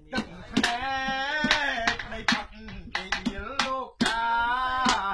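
A man singing a Khmer song unaccompanied, holding long notes that waver in pitch, over sharp hand claps keeping time about twice a second.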